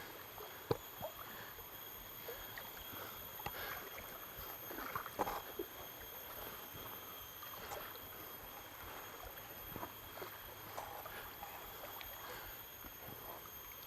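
Soft sloshing and scattered small splashes of river water around a person's legs as they wade across a fast-flowing river, against the low rush of the current.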